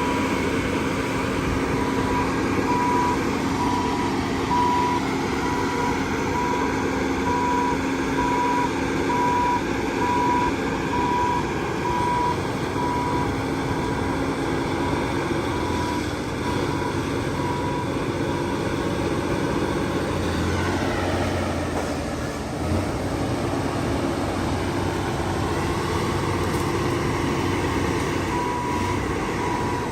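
Heavy earthmoving machinery running steadily, with a reversing alarm beeping at an even pace for the first dozen seconds and again near the end as a machine backs up. A single short knock comes about two-thirds of the way through.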